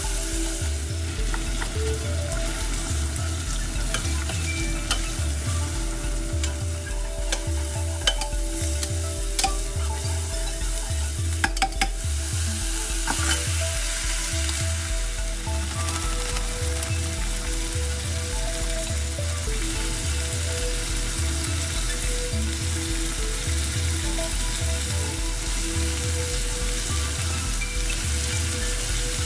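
Tomatoes and aromatics sizzling in a stainless steel pan as they are stir-fried with a spatula. A few sharp knocks come a little before halfway as raw chicken wings go into the pan, and the sizzling carries on under them. A steady low beat runs underneath.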